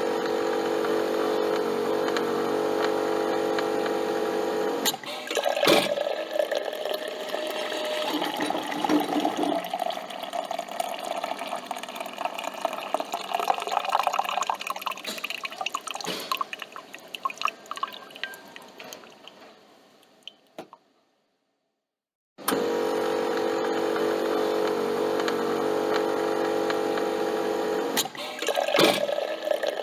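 A coffee machine's pump hums steadily for about five seconds, then clicks. Coffee streams and drips into the cup, tapering off to a few last drips. After a brief silence the pump hum starts again, with another click and a trickle near the end.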